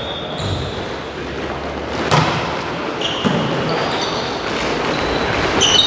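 Indoor volleyball rally echoing in a large hall: a sharp hit of the ball about two seconds in, then brief high squeaks of shoes on the court floor and some players' voices.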